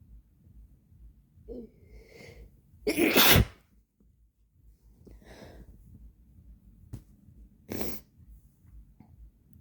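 A person sneezing twice: a drawn-in breath, then a loud sneeze about three seconds in, and a shorter, quieter sneeze a few seconds later, with breathing between.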